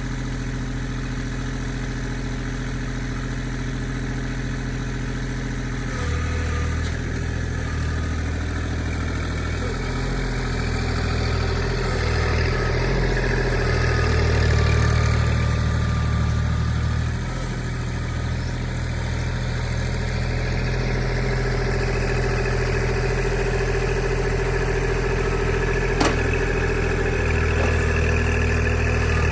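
Tractor engine running steadily, its note shifting and growing louder for a few seconds in the middle as the load changes, with one sharp click near the end.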